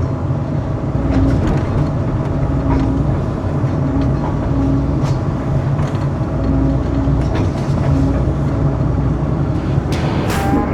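Heavy machinery engine running steadily, with scattered short clicks and knocks.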